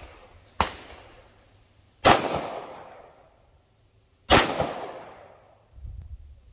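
Three 9mm CZ pistol shots, each a sharp crack with a decaying ring-out: a softer one about half a second in, then two louder ones roughly two seconds apart.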